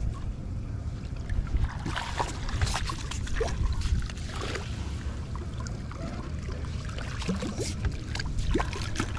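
Water lapping and trickling against a small boat's hull, over a steady low rumble, with a few light, sharp knocks scattered through.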